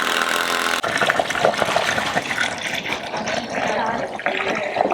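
Power drill running, driving screws into pallet wood, with a steady motor whine at the start.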